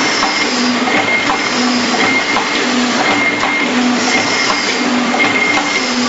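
Wire buckle making machine running through its cycle. A low tone and a clatter of clicks repeat about once a second.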